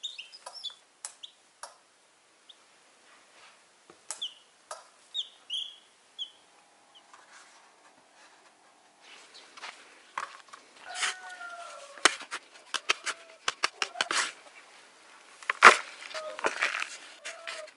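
Newly hatched chicks peeping in high, falling chirps for the first few seconds. Later a small shovel scrapes and strikes dry soil, the sharpest strike near the end, with a chicken calling a few times in between.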